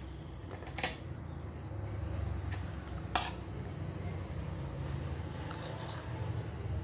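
Tableware clinking: a few sharp clicks of utensils against dishes, the clearest about a second in and again about three seconds in, over a steady low hum.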